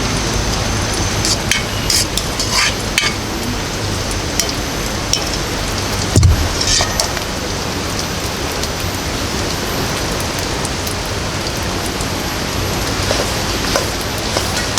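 Steady rain, with scattered sharp drips or clinks and a single dull thump about six seconds in.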